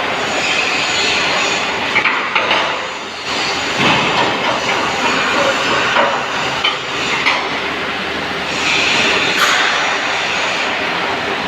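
MIG welding arc on a metal panel: a steady, loud crackling hiss with scattered sharp pops and a couple of brief dips where the arc eases.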